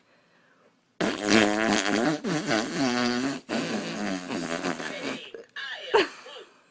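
A long, loud fart noise with a wavering, buzzing pitch. It starts about a second in, breaks off briefly twice and runs for about four seconds. A short, sharp falling sound comes near the end.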